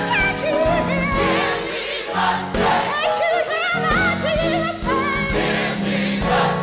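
Gospel mass choir singing behind a woman soloist on a microphone, whose voice slides and winds through runs above the choir's held chords, over band accompaniment with a steady beat.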